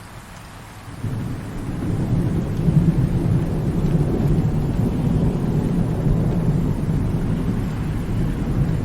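Thunder rolling in a rainstorm: a deep rumble swells up about a second in and keeps rolling, with a faint hiss of rain behind it.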